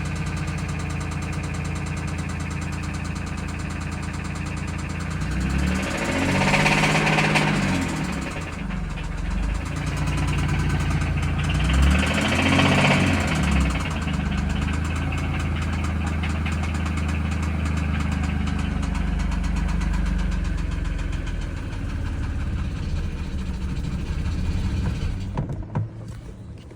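2017 Infiniti Q60 Red Sport's 3.0-litre twin-turbo V6 idling, revved twice briefly and dropping back to idle. It has a knocking noise that the owner asks may be rod knock.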